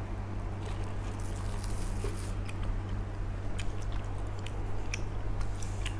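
Mouth sounds of eating and drinking: sipping water through a plastic straw, then soft scattered mouth clicks of chewing, about one a second. A steady low hum runs underneath.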